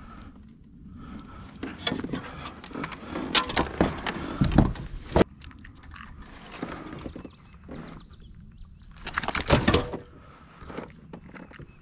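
Handling noise of fishing gear on a kayak: clicks, knocks and rubbing as a measuring board, lip grip and digital scale are handled, with two clusters of louder clattering knocks, one near the middle and one near the end.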